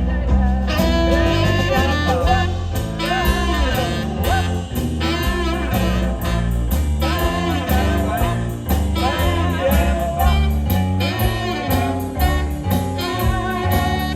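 Jazzy band music with a steady bass beat under a wavering melody line, with no singing.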